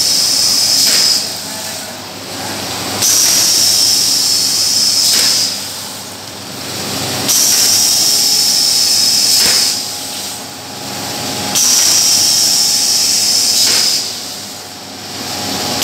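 PP woven sack cutting machine running in automatic mode, going through its cycle about every four seconds: a loud hiss with a high steady whine for about two seconds, then a quieter stretch, four times over.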